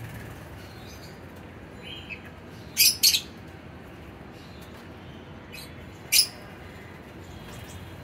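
Lovebirds giving short, shrill, high-pitched chirps: two in quick succession about three seconds in and another about six seconds in, with a few fainter chirps between.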